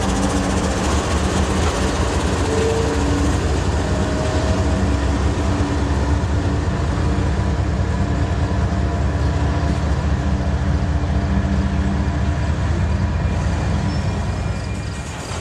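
Canadian Pacific diesel freight train passing close by: the locomotives' engines run with a steady low rumble that eases off near the end as the train moves on.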